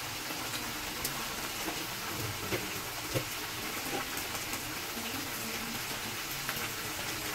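Chicken pieces frying in oil in a wok: a steady sizzle with a few small pops.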